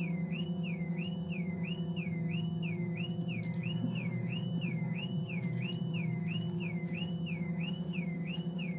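Horror film soundtrack: a high whistle-like tone warbling up and down about twice a second over a low steady drone, with two faint short ticks midway.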